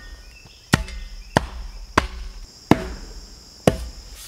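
A shovel blade slapping down on wet dirt to pack a jump: five sharp smacks, roughly one every second.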